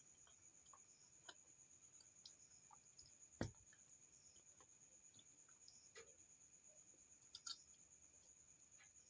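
Quiet close-miked eating: faint scattered mouth clicks and soft chewing. One dull thump comes about three and a half seconds in, and a couple of sharper clicks near the end. A faint steady high-pitched tone sits underneath.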